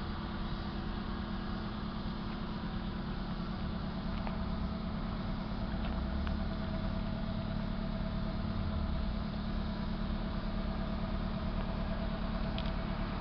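Toyota RAV4's 3S four-cylinder petrol engine idling steadily, a little louder from a few seconds in.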